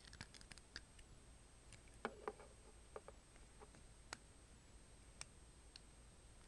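Faint, irregular clicks of plastic Lego pieces being handled and pressed together, as thin 6x1 tiles are fitted onto a brick wall, with a small cluster of clicks about two seconds in.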